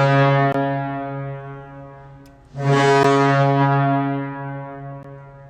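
The St. Louis Blues' arena goal horn blowing twice during a horn test: a long, low, steady blast that fades away, then a second blast about halfway through that fades out likewise.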